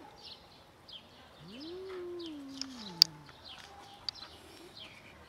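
A cat's low, drawn-out warning yowl that rises and then slides slowly down over about two seconds: a tortoiseshell mother cat defending her food. Small birds chirp throughout, and a sharp click sounds about three seconds in.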